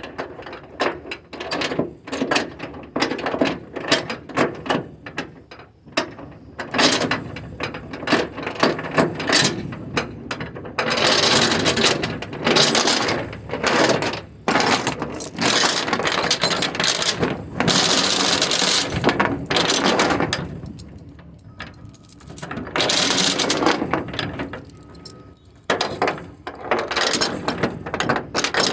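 Steel securement chain clanking and rattling as it is fed through the trailer's stake pockets and around the rail spools, with many sharp link clinks and longer stretches of chain running through in the middle and near the end.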